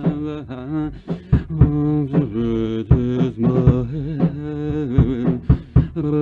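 A man's isolated lead vocal singing wordless held notes with vibrato, from a raw, untreated vocal track, with sharp ticks scattered under it.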